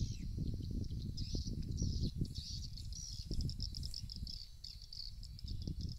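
Swiftlet lure calls broadcast from a swiftlet house's speakers: high, rapid chirping twitters in short bursts, which run together into a fast, continuous chirping trill over the second half.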